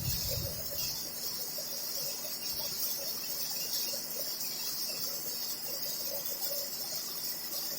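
Stick (arc) welding: the arc giving a steady high hiss with irregular crackling as the rod burns along a straight bead. A brief low bump comes right at the start.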